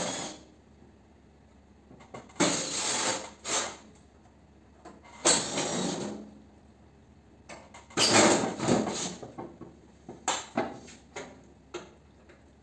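Sheet-metal casing and finned coil of a fan coil unit clattering and scraping as it is pulled and worked apart by hand, in several separate bursts of about a second each.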